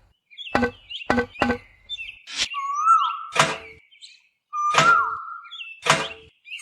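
A series of about seven sharp taps or knocks, each with a brief ringing note, irregularly spaced, with short whistle-like chirps rising and falling between them.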